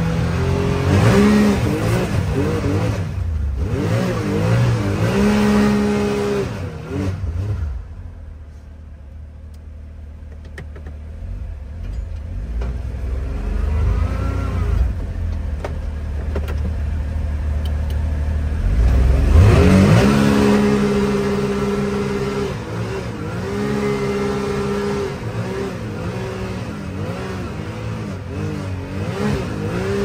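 Side-by-side's engine revving up and easing off again and again as it pushes through deep snow, its pitch rising and falling. It drops to a lower, quieter rumble around eight to twelve seconds in, then revs up sharply near twenty seconds.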